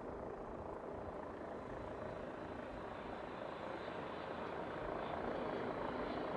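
Jet noise from the Boeing 747-8F's four GEnx turbofans on final approach: a steady rushing sound that grows slowly louder as the airliner nears, with a faint high whine coming in during the second half.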